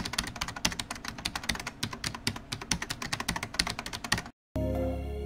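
Rapid, irregular clicking taps, a dense run of small sharp clicks like typing, which cut off abruptly about four seconds in. A hip-hop track with heavy bass starts right after.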